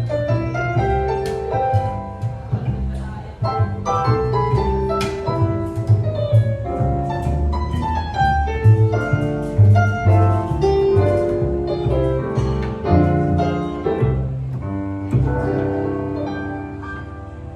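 Instrumental acoustic music: a lively run of struck and plucked notes over a walking bass line, fading out over the last few seconds.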